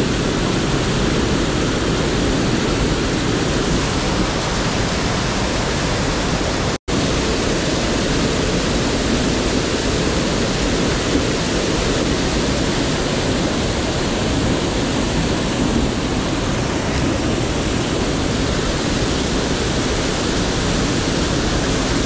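Seti River whitewater rushing through a narrow rock gorge, a loud, steady rush that cuts out for an instant about seven seconds in.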